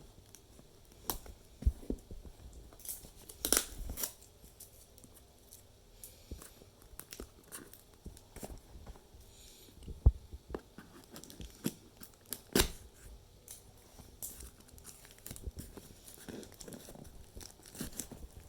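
Packaging being torn open and crinkled by hand, with irregular sharp crackles and clicks.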